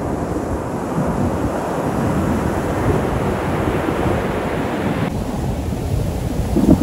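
Surf washing up the beach, with wind buffeting the microphone; the higher hiss thins out about five seconds in.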